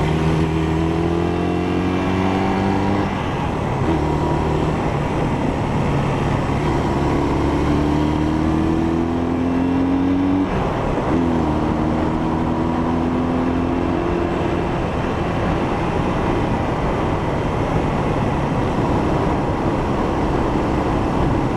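1971 Honda CL175's parallel-twin engine pulling under load, its pitch climbing and then dropping twice as it shifts up through the gears, then running on at a steady speed.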